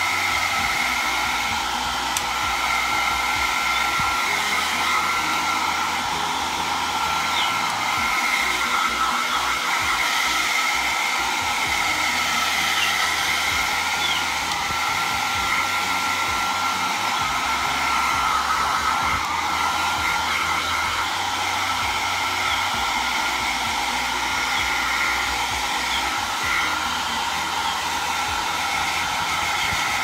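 Handheld hair dryer running steadily: a constant rush of air with a high motor whine.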